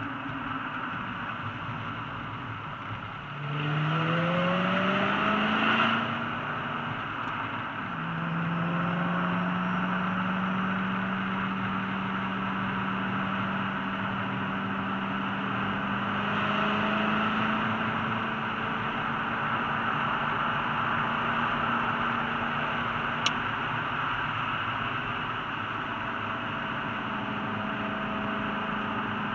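Ford GT engine heard from inside the cabin over steady tyre and wind noise. About three seconds in it revs up sharply under acceleration, drops back about three seconds later, then from about eight seconds pulls steadily with its pitch rising slowly.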